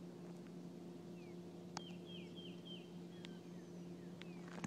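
Faint bird calls: a quick run of four short falling chirps about two seconds in, over a steady low hum, with a few faint clicks.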